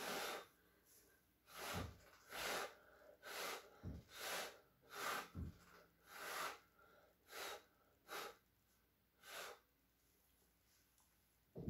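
A person blowing short, sharp puffs of breath onto wet acrylic paint, about a dozen in a row, to push the cell mix outward into a bloom flower.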